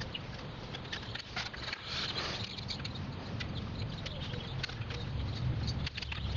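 Hand screwdriver turning the small screws that hold a voltage regulator onto an alternator: scattered light metal clicks and scrapes, over a steady low rumble.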